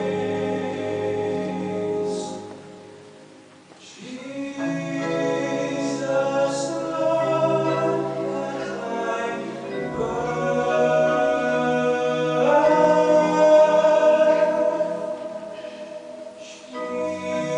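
A choir singing a hymn in long held notes, with a short break a few seconds in and the loudest passage about two-thirds of the way through.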